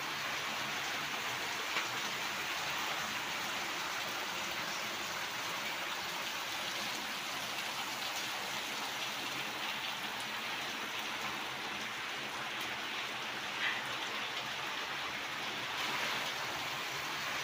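Steady rain falling, an even hiss throughout, with a few faint ticks of drops or handling.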